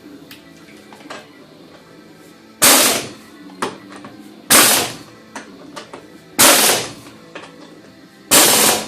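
Background music with a steady beat, marked by four loud, sharp percussive hits evenly spaced about two seconds apart, each dying away quickly.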